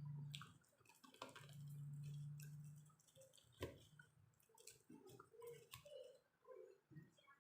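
Faint close-miked eating sounds while chewing french fries: scattered wet mouth clicks and soft chewing, with a sharper click about halfway through. A low steady hum sounds for about a second and a half near the start.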